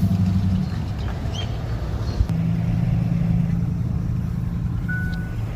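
A vehicle's engine running steadily with road noise as it drives. Near the end a reversing beeper starts up with a single high beep.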